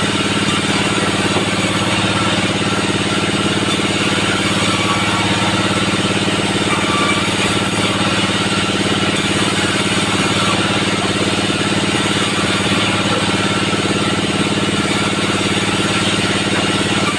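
Band sawmill running steadily: a constant, even machine drone with a fixed pitch that does not rise or fall.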